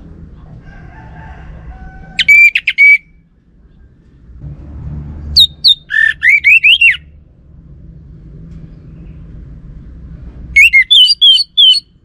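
Orange-headed thrush singing: three short phrases of rapid, clear whistled notes sliding up and down, about two, five and ten seconds in, over a faint low rumble.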